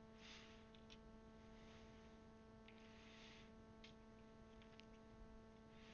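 Near silence over a steady electrical hum, with a few faint plastic clicks and soft rustles from keycaps being handled and pressed onto a mechanical keyboard.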